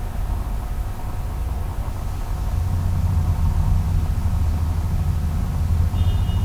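Steady low rumble of machine-like background noise, with a few faint high tones briefly near the end.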